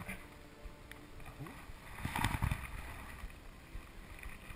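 Paddling on open water in a small boat: steady water and paddle noise, with a louder splash about two seconds in.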